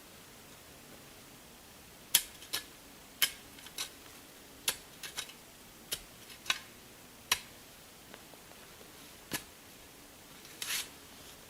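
A series of sharp, irregular clicks and taps, about a dozen, with a brief scrape near the end.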